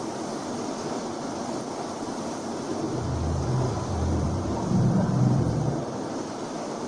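A deep low rumble during a thunderstorm swells from about three seconds in, peaks, and fades a few seconds later over a steady rushing noise. It is the kind of low storm sound billed as an 'apocalyptic sound'.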